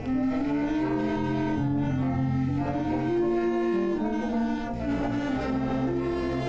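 Slow instrumental music: sustained melody notes moving step by step over a held bass line, a deeper bass note entering in the second half.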